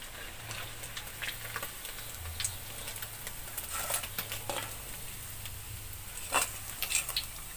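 Catfish sizzling in hot oil in a wok while a metal spatula lifts the fried fish out. Scrapes and clinks of the spatula on the wok and bowl come throughout, the sharpest two near the end.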